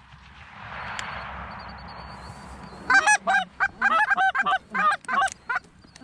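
Geese honking: a rapid run of loud, short honks begins about halfway through, after a soft rushing noise.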